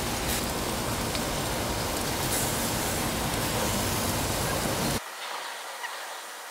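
Chicken wings sizzling on the grate of a Weber Smoky Mountain charcoal smoker, a steady hiss. About five seconds in it cuts off abruptly to a much fainter hiss.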